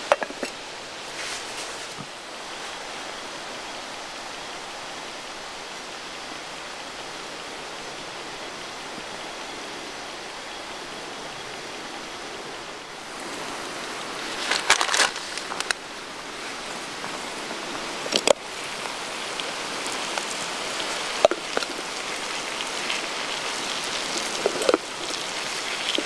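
Sausage slices and cherry tomatoes sizzling steadily in a small frying pan over a spirit burner. From about halfway on, a few sharp clicks and knocks.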